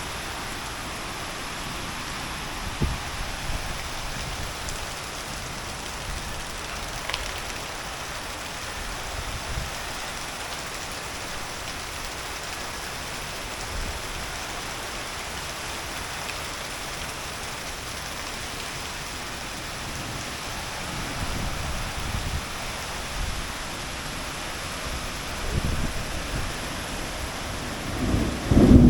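Heavy rain falling steadily. Low rumbles swell now and then and grow loudest near the end.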